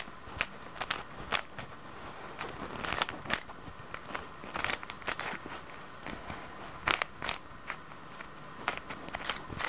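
Plastic speed cube being turned by hand: irregular clicks and clacks of its layers snapping round, in short runs with pauses between them.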